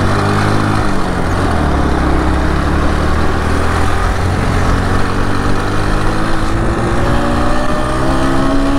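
Motorcycle engine heard from the rider's seat, with wind and road noise. Its pitch dips in the first second or two as the bike slows through a U-turn, then climbs slowly and steadily as it accelerates away, until it drops near the end with a gear change or easing of the throttle.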